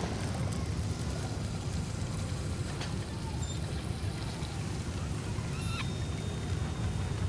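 Sci-fi desert marketplace ambience: a steady low rumble with a faint click about three seconds in and a short wavering high chirp a little before six seconds.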